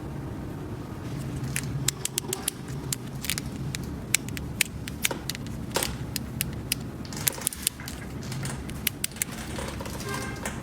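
Small plastic toy pieces being handled, giving many irregular sharp clicks and taps over a steady low hum.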